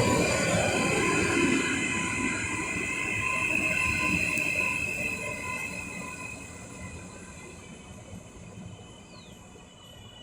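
Train running on the rails with a high-pitched, sustained wheel squeal over a rumble. It fades steadily through the second half.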